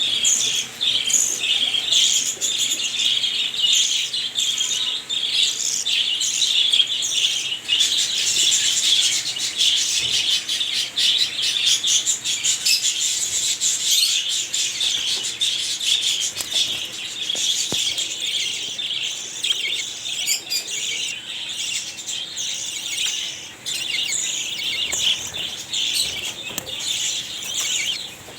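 A group of small cage birds chirping and twittering continuously, many short, high calls overlapping with no break.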